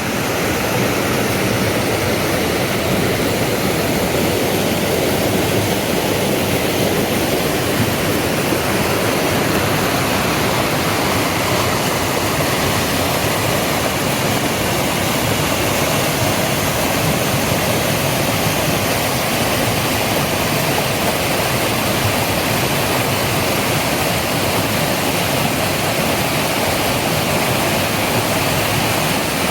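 Waterfall rushing: a steady, loud, unbroken wash of falling water.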